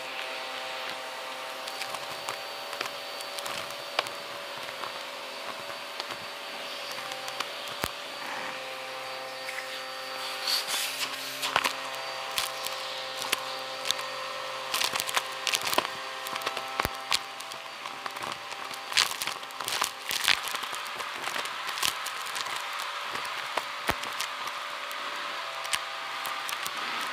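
Vacuum cleaner running steadily as its bare wand sucks up dust, beads and small plastic bits from a rug. The debris clicks and crackles up the tube in quick, irregular rattles, thickest in the middle stretch.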